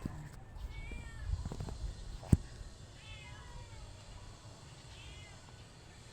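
A cat meows faintly three times, each call rising and falling, about two seconds apart. A single sharp knock a little over two seconds in is the loudest sound, with some low rumbling handling noise before it.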